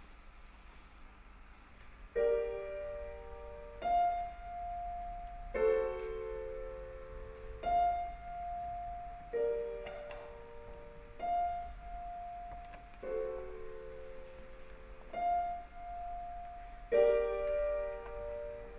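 Piano playing a slow repeating figure: a low chord alternating with a single higher note, a new strike about every two seconds, each left to ring and fade. It begins about two seconds in.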